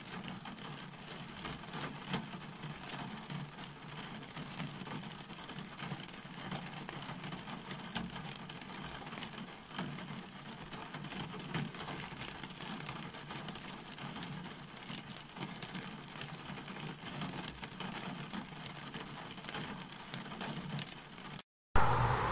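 Steady rain falling, with many small drop taps over a low rumble. It cuts off near the end.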